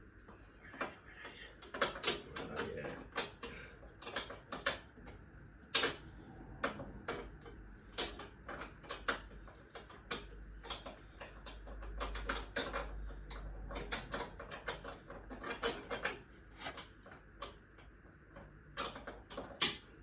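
Metal spanner clicking and clinking on a bolt as it is fitted and worked, in sharp, irregular clicks, sometimes several a second.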